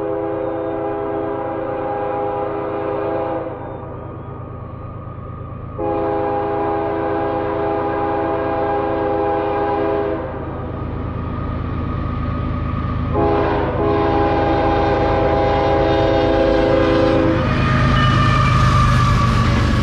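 Canadian Pacific ES44AC diesel locomotive's horn sounding the grade-crossing signal as the train approaches: a long blast ending about three seconds in, a second long blast, a short blast and a final long one. Near the end the locomotive's engine rumble and wheel noise swell as it passes close by.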